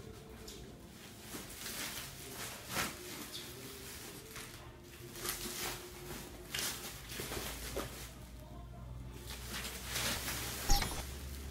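Plastic protective wrap crinkling and rustling in irregular bursts as a flat-screen TV is pulled out of it, with one sharp knock near the end.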